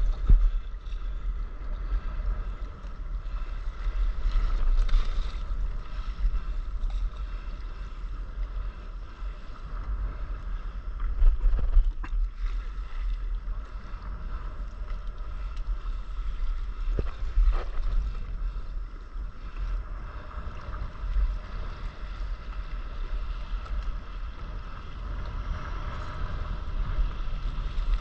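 Wind rumbling on a camera microphone low on a stand-up paddleboard, over the slosh and splash of choppy sea water against the board. A few sharp knocks come through, around the middle and later on.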